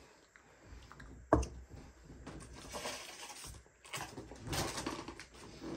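A single sharp knock on the table about a second and a half in, followed by rustling of paper fast-food packaging as it is handled.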